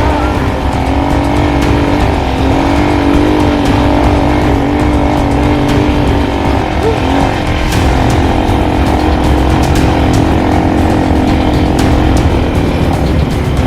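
ATV engine running steadily, its pitch wavering slightly as the throttle varies, with a few scattered knocks.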